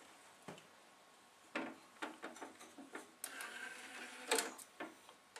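Denon DN-D4000 CD transport starting up on power-on: the tray motor pulls the drawer shut, with a short whir and a handful of faint clicks, the loudest click about four seconds in. The transport is initialising normally after a laser pickup replacement.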